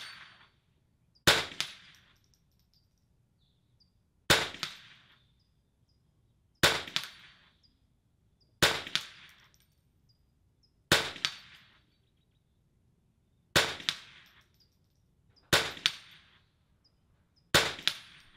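Rifle shots fired from the prone position at a target downrange: eight sharp cracks about two seconds apart, each with a short ringing tail.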